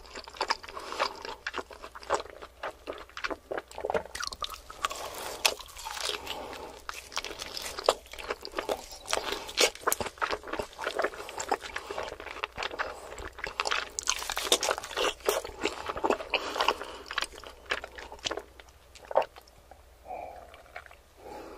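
Close-miked chewing of rare roast meat with a browned crust: wet, smacking mouth sounds and crisp crunches coming fast and unevenly. The chewing thins out near the end, when a sip is taken from a glass of red wine.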